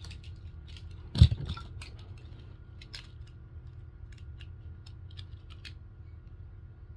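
Light plastic clicks and rattles of toy-blaster ammo-chain links being handled and fitted together, with one louder knock about a second in.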